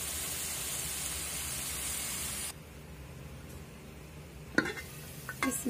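Mutton liver masala sizzling in a steel pan as it is fried down to cook off its liquid. About halfway the sizzle drops away abruptly to a low dull hum, and near the end come a couple of sharp metal knocks as the pan's steel lid is handled.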